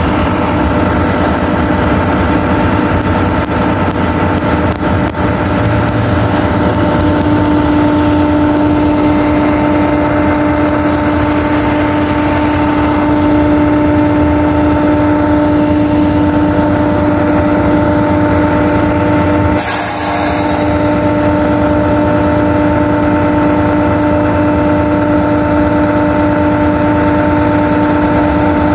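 Orion VII Next Generation hybrid-electric city bus standing at high idle: a steady drone with several steady whining tones, one of which grows stronger about seven seconds in. A short hiss comes about twenty seconds in.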